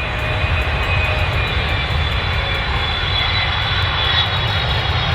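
An aeroplane engine running steadily: a deep, even rumble with a faint high whine over it.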